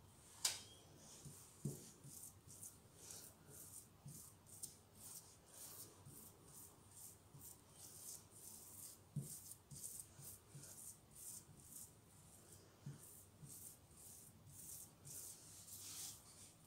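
Faint, repeated scraping strokes of a metal spoon spreading a thick filling over rolled-out dough, with a sharp click about half a second in and a few soft knocks.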